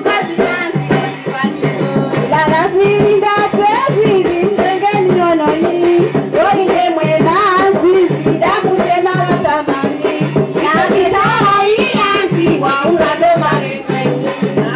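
Women's chorus singing a lelemama song over a steady percussion beat.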